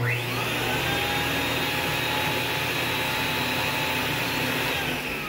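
Thermax canister vacuum switched on with its powerhead held up off the floor. The suction motor and the newly replaced beater motor spin up with a rising whine, run steadily, then wind down with a falling pitch near the end. It is a test run showing that the new powerhead motor works.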